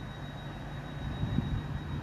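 GWR Class 800 bi-mode train running on its underfloor diesel engines as it approaches: a steady low hum that grows louder and rougher from about a second in.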